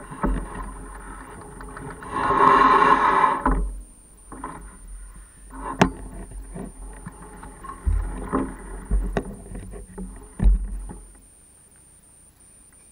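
Mongoose Argus fat bike riding over rough forest ground, heard from a camera mounted on the bike: rattling and clattering, with a loud buzzing hum about two seconds in and several sharp knocks from bumps. Near the end the noise dies away as the bike comes to a stop.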